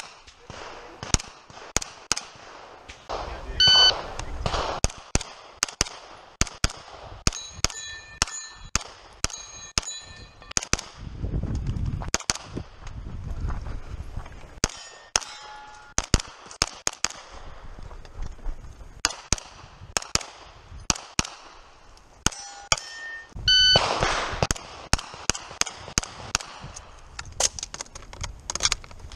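Strings of quick single shots from an MP5 carbine, in pairs and short runs, with steel targets clanging and ringing when hit, most clearly about four seconds in, around eight to ten seconds in, and near the end.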